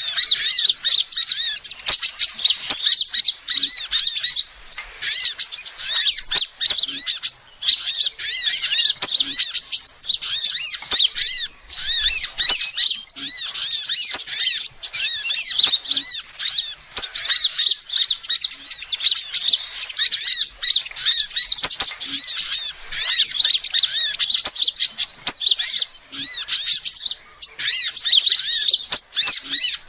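Female sunbird calling: rapid, high-pitched twittering chirps in runs of a second or more, broken by short pauses.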